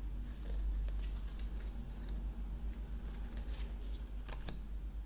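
Paper cards and a cardboard box being handled: faint rustles and a few soft clicks, over a steady low hum.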